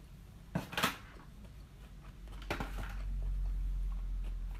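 A few short clatters of a sushi plate being set down on a wooden coffee table, about half a second in. Then a low rumble builds up and runs on.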